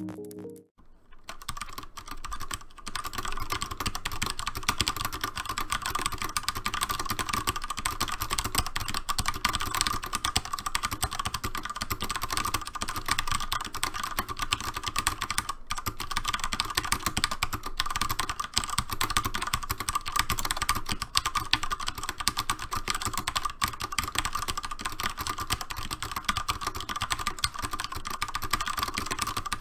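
Fast, continuous typing on a Cooler Master MasterKeys S mechanical keyboard with linear Cherry MX Red switches: a dense, unbroken clatter of keystrokes that starts about a second in.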